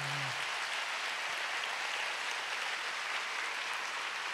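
A large congregation applauding, a dense, even clapping that holds steady throughout.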